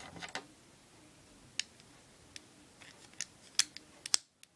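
Plastic Lego bricks clicking and clattering as pieces are handled and pressed together: a few scattered sharp clicks, the loudest near the end.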